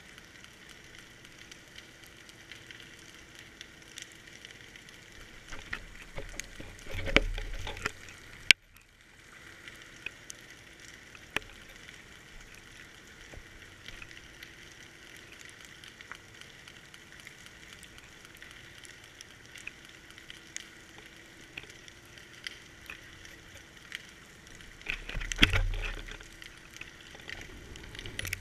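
Underwater sound picked up through a GoPro's waterproof housing: a steady muffled hiss with scattered faint clicks and crackle. Two louder, low, rumbling swells come about 7 s and 25 s in, and there is one sharp click about 8.5 s in.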